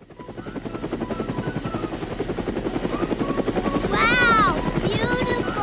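Cartoon helicopter sound effect: a rapid, even rotor chop that fades in and grows louder. Short rising-and-falling pitched sounds come in about four seconds in and again near the end.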